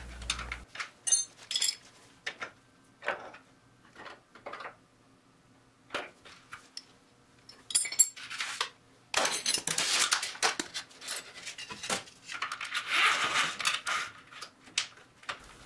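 Small steel hardware clinking and clicking under a wrench as an emergency-brake cable sheath fitting is bolted to a frame bracket. About nine seconds in, a denser stretch of scraping and rattling follows as the brake cable is fed through the fitting.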